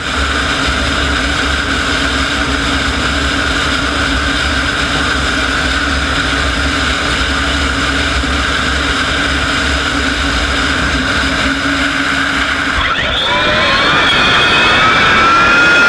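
Klimov TV3-117 helicopter turboshaft engine in a modified turbine tractor puller, running with a steady whine over a low rumble. About 13 seconds in, its pitch starts to rise and it grows louder as the turbine spools up.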